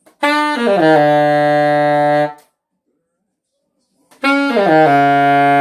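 Alto saxophone playing two quick descending runs, each stepping down into a held low note, sounding the horn's low B and low B-flat.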